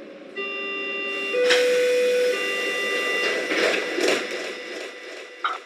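Opening of an electronic techno track: several sustained synthesizer tones held together, a louder low note for about a second, then swelling hiss-like noise that fades away.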